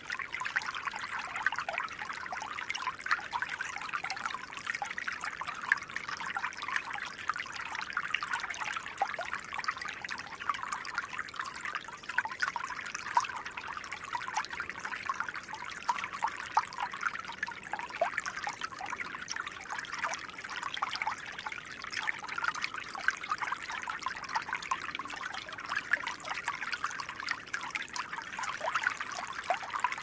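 Stream water flowing steadily: a continuous, even trickle made of many small splashes.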